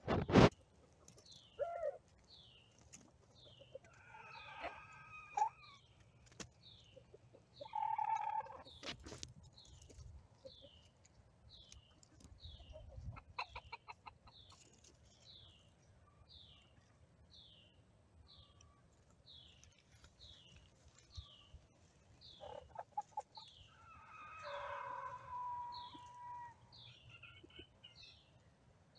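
Free-ranging chickens calling: a rooster's predator alert, with pitched clucking calls in the first ten seconds and a longer drawn-out call about three-quarters of the way through. Under them runs a steady series of short, high, falling chirps, about one every two-thirds of a second.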